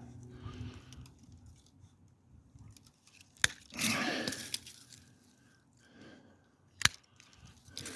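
Two sharp snaps of pruning cutters closing through redbud limbs, a little over three seconds apart, with a rustle after the first.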